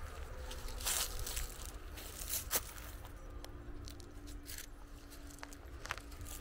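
Footsteps crunching unevenly on dry ground, over a constant low rumble.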